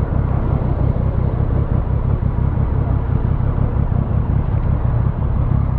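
Sport motorcycle's inline-four engine idling with a steady low rumble.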